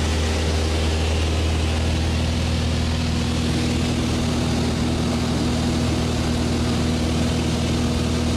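Small high-wing propeller plane in flight, heard from inside the cabin: a steady, loud engine drone with a low hum under an even hiss.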